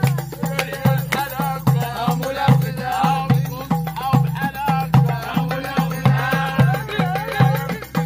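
Music with a steady low drum beat, about two beats a second, under a wavering melody.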